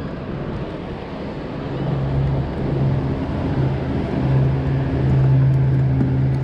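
Steady low engine drone that sets in a couple of seconds in and grows louder, over a wash of wind and water noise.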